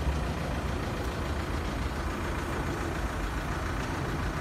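Vehicle engine idling steadily, a low even rumble.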